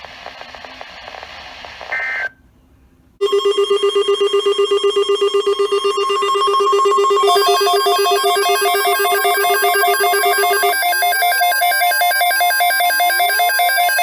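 Weather-radio hiss, then about two seconds in a short two-tone data burst and a moment of silence. Then a loud electronic alert sounds: a rapidly pulsing set of beeping tones that turns, about halfway through, into a busier stepping electronic jingle with repeated rising sweeps, like a ringtone.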